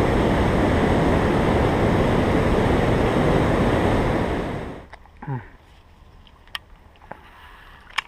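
Water rushing over a dam spillway and through fast floodwater, a loud, steady noise that cuts off sharply about five seconds in. After that it is much quieter, with a few faint clicks and a brief falling tone.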